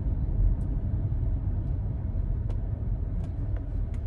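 Car driving: a steady low road and engine rumble, with a few faint ticks.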